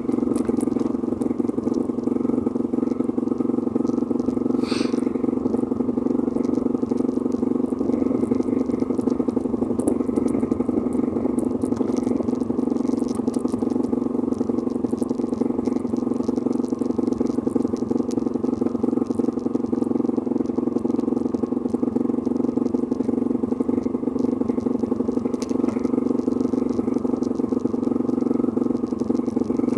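A vehicle engine running steadily at an even speed, with no revving or gear changes.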